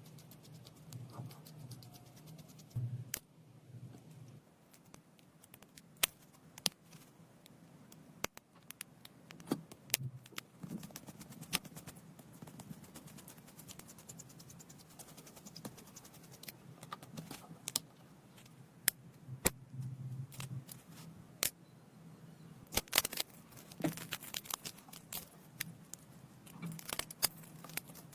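Small tools and tiny lens parts being handled during a lens repair: scattered, irregular sharp clicks and taps, thickest near the end.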